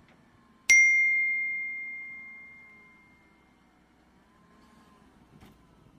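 A single bell ding, struck once under a second in and ringing out as one clear high tone that fades over about three seconds: the notification-bell sound effect of a subscribe-button animation.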